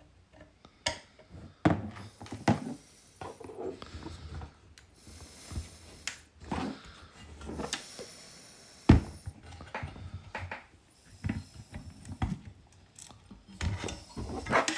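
Plastic housing of a Nissan Skyline R34 GT-R multi-function display being taken apart by hand and with small tools: scattered clicks, taps and knocks, the loudest knock about nine seconds in.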